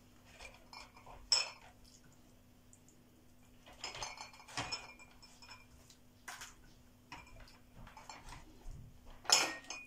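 Glass jars clinking and knocking on a metal baking tray as pieces of salted pollock are pressed into them by hand: a few scattered clinks, the loudest near the end, over a faint steady hum.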